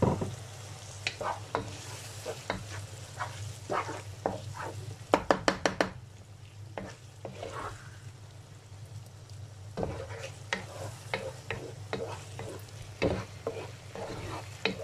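Wooden spatula stirring and scraping minced chicken and tomato paste around a non-stick frying pan while the mince sizzles. A quick run of about five sharp knocks of the spatula against the pan, about five seconds in, is the loudest moment.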